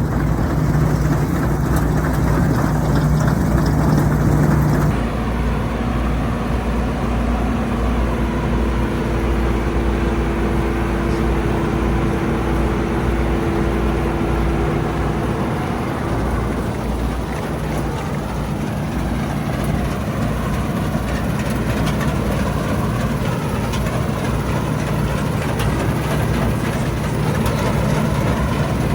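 Old Bizon combine harvester's engine running steadily with a low drone. The sound changes about five seconds in, and a steady higher whine sounds for several seconds around the middle.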